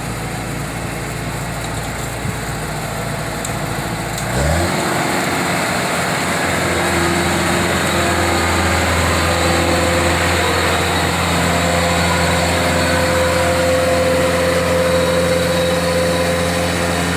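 Kubota 105 combine harvester's diesel engine running at low speed, then revving up quickly about four seconds in and holding a steady, higher speed as the machine gets ready to go down into the paddy.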